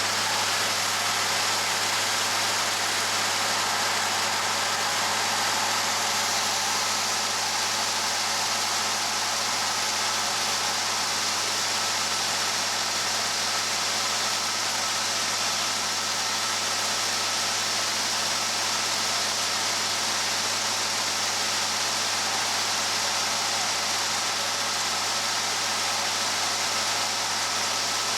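Gleaner S67 combine running steadily: a constant machine hum with a low drone and an even hiss, holding level throughout.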